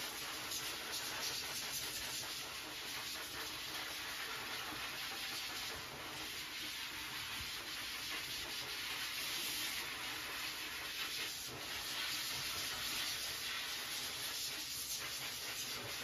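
K-9 II variable-speed high-velocity dog grooming dryer blowing a steady airy hiss that wavers slightly in strength, drying freshly bathed Yorkies' coats.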